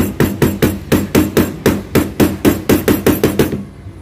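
Aluminium brake master cylinder body knocked repeatedly against the workbench, about four or five sharp knocks a second, stopping near the end. The knocking is meant to shake the primary piston loose from the bore.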